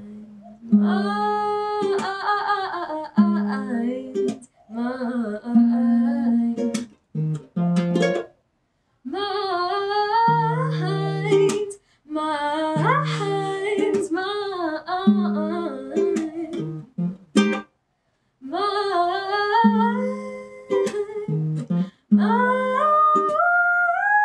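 A young woman singing a melody to her own fingerpicked nylon-string classical guitar. The phrases are cut by several brief, complete dropouts.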